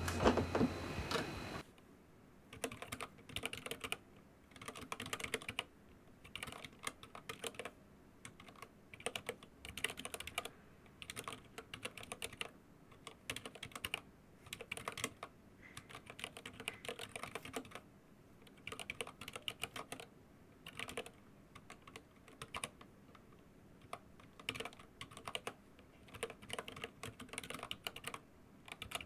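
Anne Pro 2 mechanical keyboard typed on fast in bursts of rapid key clicks with short pauses between them; the keys are fitted with rubber O-ring dampeners and new keycaps. Typing starts about two seconds in.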